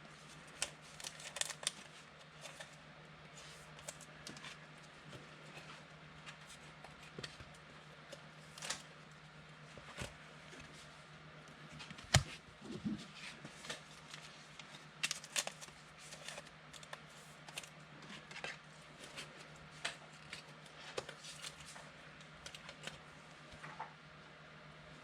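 Football trading cards being handled and shuffled: faint scattered taps and slides of card stock, with one sharper click about halfway through, over a steady low hum.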